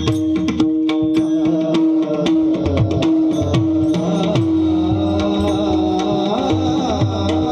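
Mridang (pakhawaj) drumming, a quick run of strokes over a steady held drone note, with some bass strokes gliding in pitch.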